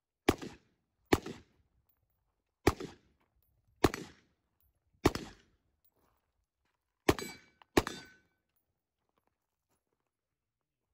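Seven single shots from an AR-15-pattern carbine, fired one at a time at uneven gaps of about one to one and a half seconds, the last two closer together; each crack is followed by a short echo. The shooting stops about eight seconds in.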